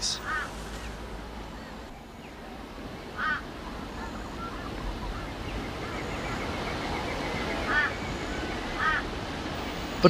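Steady rush of flowing creek water, growing a little louder through the middle, with a bird giving short calls four times, at the start, about three seconds in, and twice near the end.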